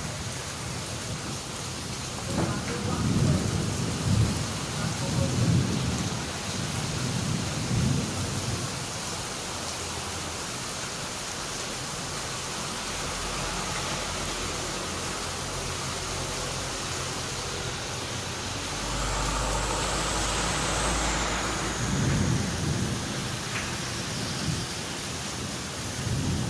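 Steady heavy rain falling, with rolls of thunder rumbling from about two seconds in for several seconds and again near the end.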